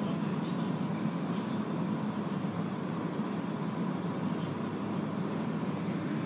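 Steady low hum and rumble inside a Montreal Metro Azur train car at Henri-Bourassa station.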